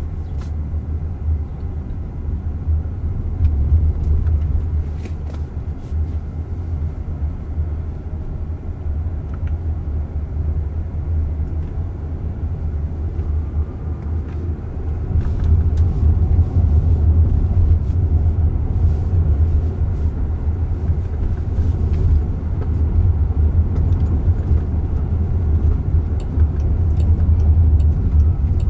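Steady low road and tyre rumble heard inside the cabin of a moving Jaguar I-Pace electric car, growing louder about halfway through.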